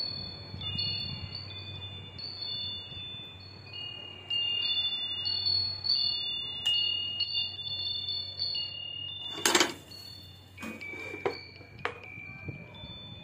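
Metal chimes tinkling, clear high notes at several pitches ringing on and overlapping one another. About nine and a half seconds in there is one loud short knock, followed by a few lighter knocks.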